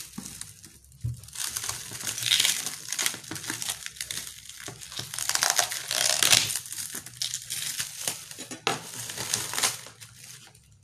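Clear plastic shrink-wrap crinkling and tearing as it is cut and pulled off a boxed keyboard case, coming in several bursts.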